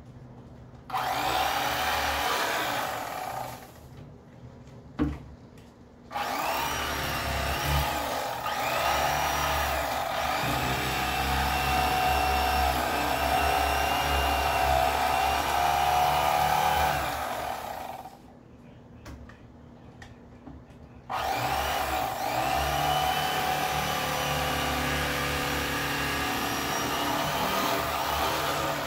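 Electric fillet knife running in three bursts as it cuts crappie fillets: a steady motor buzz whose pitch wavers as the blades work through the fish, with a sharp click in the pause between the first and second bursts.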